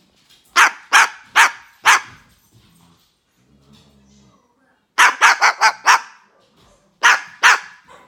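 Umbrella cockatoo imitating a dog's bark: four barks, then a quick run of five, then two more.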